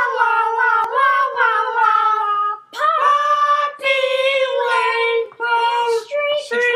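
A single high-pitched voice singing an opening theme-song tune with no accompaniment, in long drawn-out phrases with short breaks between them.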